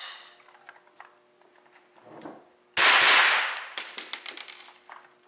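.22 rifle (a Remington 597 in a homemade G36C-style body): a sharp click of the action as it is worked, then, almost three seconds in, a single loud shot ringing in the small range room, followed by a run of light clicks.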